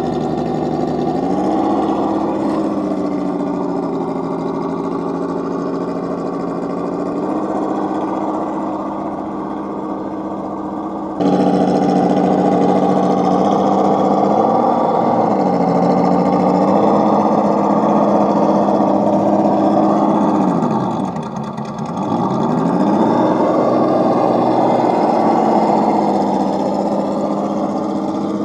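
Electric motor and geared drivetrain of a radio-controlled scale rock crawler whining as it climbs over rocks, the pitch dipping and rising again with the throttle several times, most deeply about two-thirds of the way through. The sound jumps abruptly louder a little over a third of the way in.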